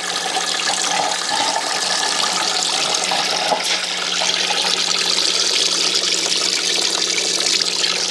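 Engine coolant (orange Dex-Cool) pouring from a loosened lower radiator hose and splashing steadily into a plastic drain bucket. The stream grows heavier toward the end.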